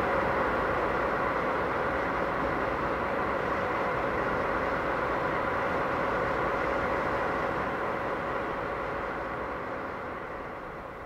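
DD51 diesel-hydraulic locomotive's twin V12 diesel engines running steadily with a constant whine, fading out near the end.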